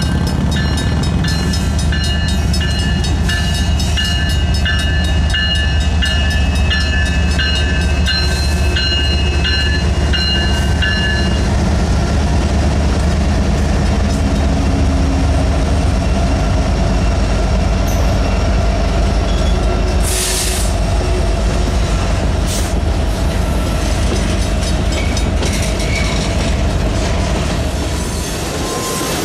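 Mechanical railroad crossing bell ringing with fast, even gong strikes, heard until about eleven seconds in, over the steady low rumble of CN diesel-electric locomotives passing the crossing. Freight cars then roll through with clattering wheels and occasional sharp bangs.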